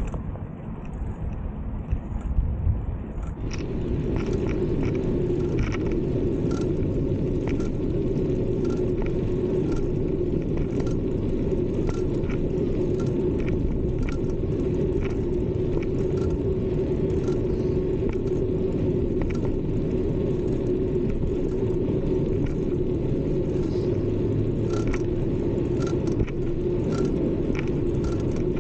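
Steady rolling rumble of a bicycle in motion on a paved path, settling into an even hum a few seconds in, with light ticks about once a second.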